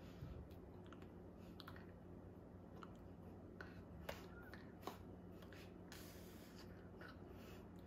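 Near silence: quiet room tone with a low steady hum and faint, scattered clicks and soft taps from a person's hands and body moving. The two sharpest clicks come about four and five seconds in, and there is a brief soft rustle a little later.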